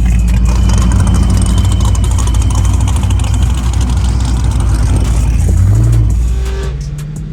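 Race car engine and exhaust running with a loud, heavy low rumble. Just before the end the pitch briefly climbs, then the level drops as the throttle eases off.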